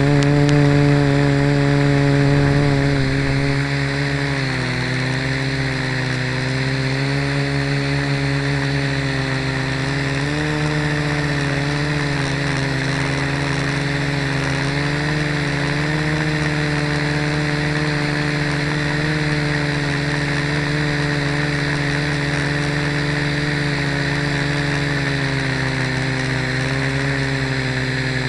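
Blade mQX micro quadcopter's four small brushed motors and propellers whining steadily, picked up up close by the camera on the airframe. The pitch dips about four seconds in and rises again around ten seconds in as the motor speed changes.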